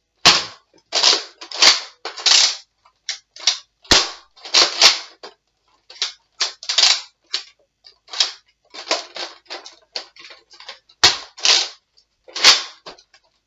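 Nerf blaster being primed and fired over and over: a rapid run of short plastic clacks and pops, about two a second, with a few sharper snaps and a brief pause about halfway through.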